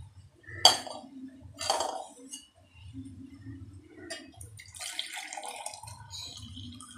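Steel mug and tumblers knocking against a stone counter twice, sharp clinks, then the hot drink being poured from the mug into a steel glass, a splashing trickle a few seconds later.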